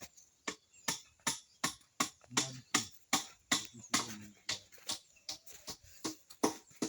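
A steady run of sharp, evenly spaced knocks, close to three a second.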